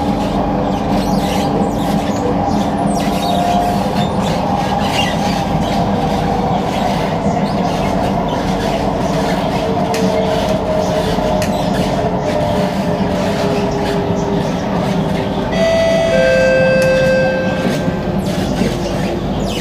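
Singapore MRT train running between stations, heard from inside the car: a steady rumble with a faint motor whine drifting in pitch. About 16 seconds in, a higher ringing tone sounds for about two seconds.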